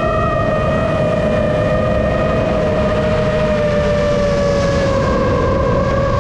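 Seven-inch FPV quadcopter's motors and propellers whining at a steady pitch that lifts slightly near the start and sinks slowly through the middle, over a low rushing noise.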